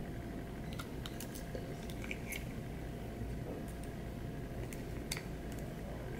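Plastic fork clicking and scraping in a small plastic cup of sauerkraut as it is stirred, faint scattered clicks over a steady low room hum.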